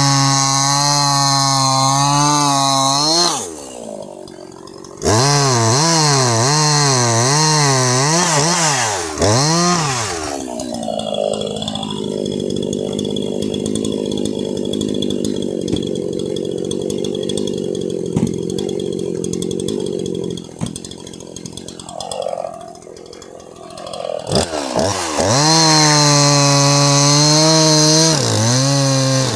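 Jonsered 2153 two-stroke chainsaw running at high revs with its pitch wavering up and down, easing off briefly twice. For about ten seconds in the middle it runs at a steadier, lower pitch under load, cutting through wood.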